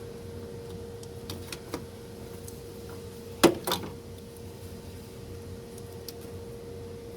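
Hand-handling clicks and taps as an HID headlight ballast and its plastic connector are worked free, with a sharp double clack about three and a half seconds in, over a faint steady hum.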